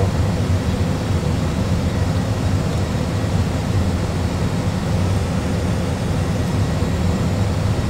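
Steady low rumble and hiss of an Airbus A320 full flight simulator's cockpit, the simulated aircraft noise running evenly with no change.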